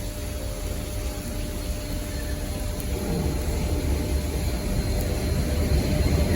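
Freight train approaching: a low rumble that grows steadily louder.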